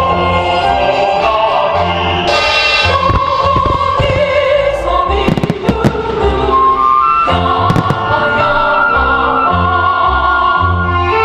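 Music with singing and orchestra, the accompaniment of a fireworks show, with fireworks bursting over it: a quick cluster of sharp bangs near the middle and a couple more about two seconds later.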